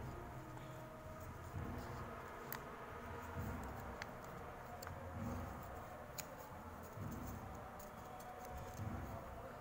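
Fingers handling paper tabs on a handmade card, lifting and pressing them: scattered light clicks and dull thumps at irregular intervals.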